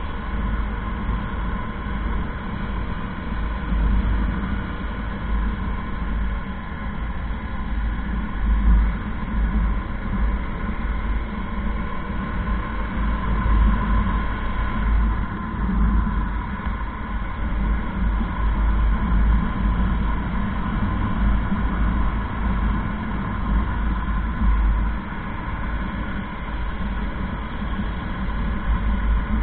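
Motorcycle engine running steadily while riding at cruising speed, with wind rushing over the on-bike camera's microphone.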